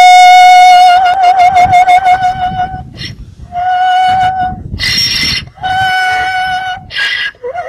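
A donkey braying in a high, drawn-out, almost musical voice: four long held notes, some wavering, each broken by a short harsh rasping breath.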